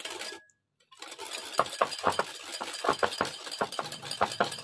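A spoon stirring mayonnaise-based coleslaw dressing in a bowl, clinking and scraping against the bowl a few times a second, starting about a second in.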